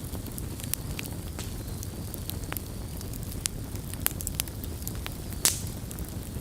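Campfire of burning wood with a steady low rumble and scattered sharp crackles and pops from the firewood, the loudest pop about five and a half seconds in.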